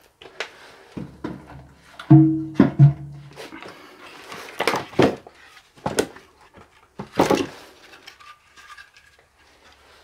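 Split firewood logs clunking against each other and against the metal firebox of a Feringer sauna stove as they are laid in: a dozen or so separate knocks, the one about two seconds in ringing on briefly with a low hum.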